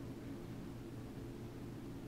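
Quiet room tone: a steady low hum with a faint hiss.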